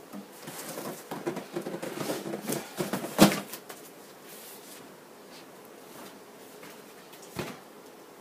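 Rustling and clattering of things being handled, with many small clicks and one sharp knock about three seconds in, then a single click near the end.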